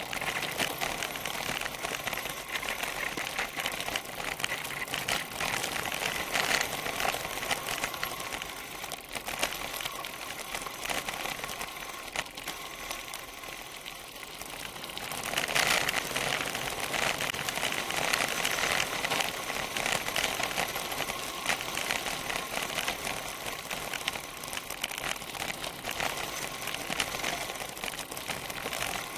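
Mountain bike rolling fast down a rough gravel track, a continuous rapid clatter of tyres on loose gravel and the bike shaking over the bumps, heard through a camera clamped to the seatpost. It gets louder about halfway through.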